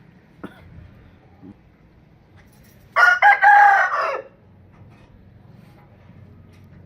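A rooster crowing once, a loud call lasting just over a second, about three seconds in.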